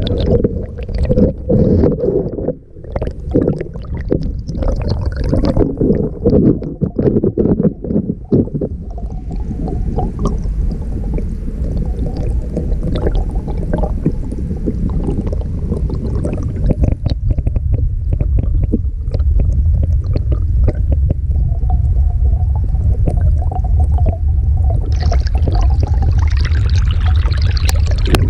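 Stream water flowing around a submerged camera, heard underwater: a loud low rumble and gurgle, with many small crackles and ticks in the first several seconds, settling into a steadier rumble, and a brighter hiss near the end.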